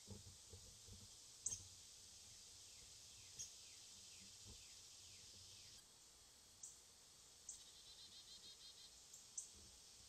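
Near silence: a trail camera's steady hiss, with faint distant bird calls (a run of short descending notes, then a brief rapid trill near the end) and a few scattered sharp clicks.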